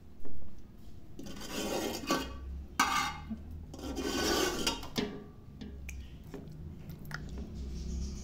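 Metal spoon scraping and rubbing against a metal cooking pot while thick chicken curry is spread over a layer of rice, in several scraping strokes with a few sharp clicks of spoon on metal.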